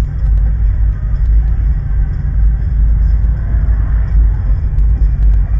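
Steady low rumble of a stationary car with its engine idling, heard from inside the cabin.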